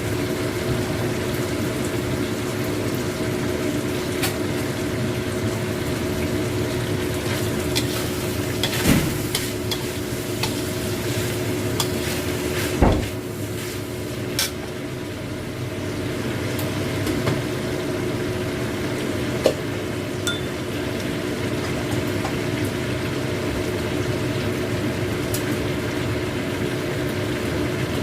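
A stir-fry of salted squid, tempeh and green chillies sizzling in a pan while a spatula stirs it, knocking sharply against the pan three times, over a steady hum.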